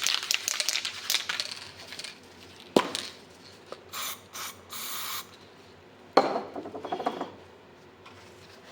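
Aerosol spray can being shaken, its mixing ball rattling in quick clicks, then three short hisses of spray, with a knock in between, and a second burst of shaking near the end.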